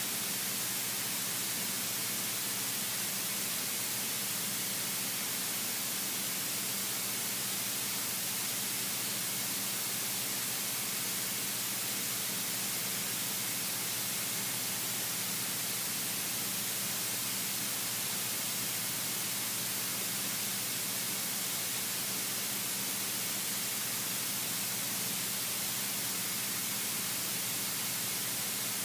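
Steady hiss of a light aircraft's cockpit intercom audio during an approach, strongest in the highs, with a faint steady low engine hum underneath.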